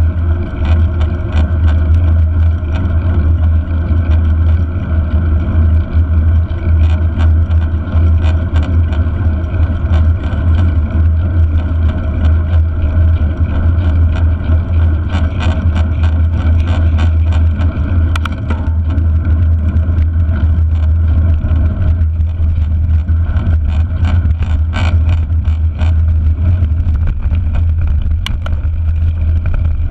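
Steady low rumble of wind and tyre noise picked up by a handlebar-mounted action camera on a mountain bike riding at speed. Short clicks and rattles from the bike over bumps come more often in the second half.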